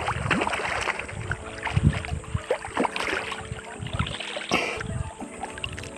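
Seawater splashing and sloshing close by, in an uneven wash with irregular sudden splashes.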